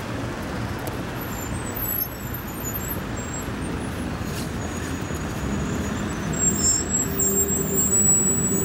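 Road traffic: cars and vans driving past, a steady rumble of engines and tyres that grows louder in the second half, with a few faint high squeaks.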